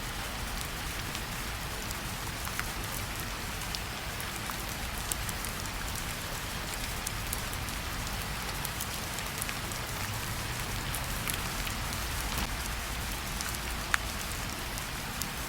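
Steady rainfall, with scattered individual drops ticking, one sharper than the rest about fourteen seconds in.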